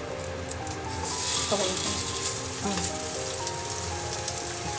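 Raw ground-chicken tsukune patties sizzling in hot oil in a nonstick frying pan; the sizzle swells about a second in, as another patty goes into the pan, and then holds steady. Light background music plays under it.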